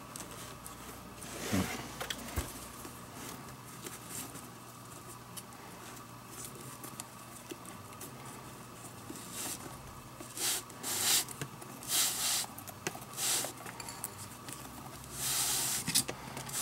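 Leather lace being pulled through the lacing holes of a catcher's mitt: short scratchy swishes of leather rubbing on leather, one early and a quick run of them in the second half.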